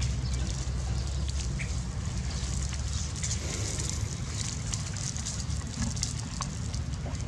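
Dry palm fronds crackling and rustling under a puppy as it squirms and rolls on its back on them, over a steady low rumble.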